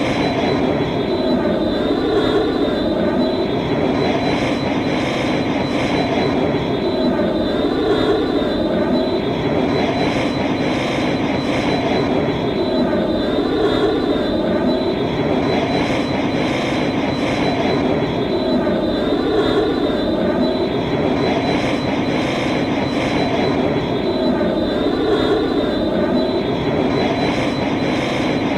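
Exterior engine sound effect of a Y-wing bomber starfighter, looped: a steady jet-like roar with a thin high whine, swelling and easing in a slow cycle about every six seconds.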